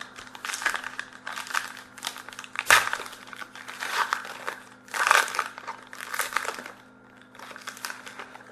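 Trading card pack wrapper being torn open and crinkled by hand, in a string of rustling bursts with one sharp, louder crackle a little under a third of the way in.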